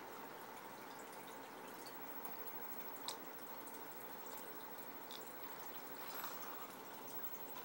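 Steady trickle and drip of aquarium water circulating in the tank, with a few faint ticks, the clearest about three seconds in.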